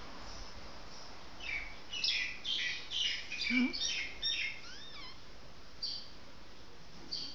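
Newborn puppy squeaking, a quick run of high-pitched squeaks ending in two falling whines, then single squeaks a little later.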